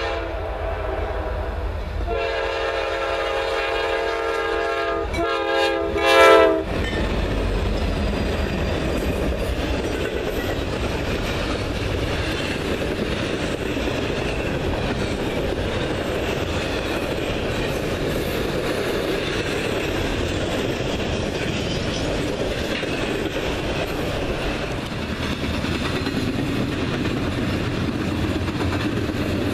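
Norfolk Southern freight diesel's air horn sounding a chord for a grade crossing, with a brief break about two seconds in. It is loudest as the locomotive passes and cuts off about six and a half seconds in. After that come the steady rumble and wheel clatter of double-stack intermodal well cars rolling past.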